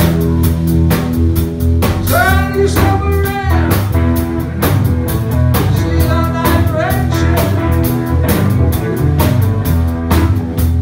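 Loud live blues-rock band playing: electric guitars, bass guitar and a drum kit, with a lead line of bending notes at a few points.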